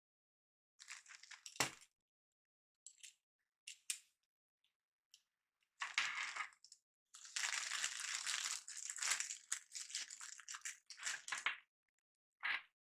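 Small plastic and metal parts of a water-cooler mounting backplate being handled and fitted by hand: scattered clicks and rattles, with a longer stretch of rustling and scraping about six to eleven seconds in.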